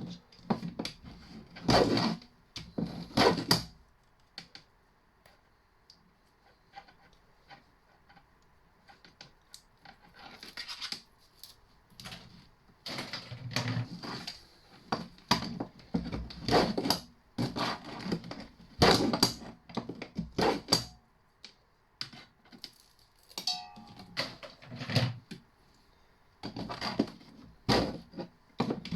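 Copper cable being stripped by hand with a Stanley knife: irregular bursts of scraping, cutting and clicking as the insulation is cut and the wire handled, with short pauses between, and a brief squeak about two-thirds of the way through.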